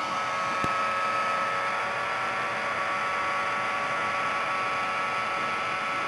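Small vacuum fan motor built into a Roomba's dust bin, run off external wires, running at a steady whine while it sucks dust and debris off a tabletop. A single sharp click comes about half a second in.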